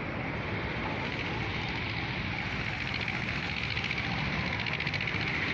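Steady outdoor road-traffic noise with a hiss, getting a little louder about halfway through.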